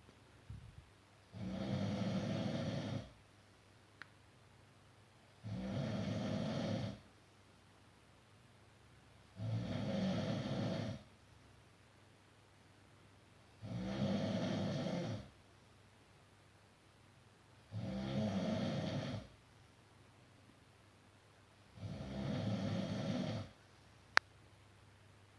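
A sleeping person snoring in a steady rhythm: six long snores, each about a second and a half, one every four seconds, with quiet pauses between. A single sharp click comes near the end.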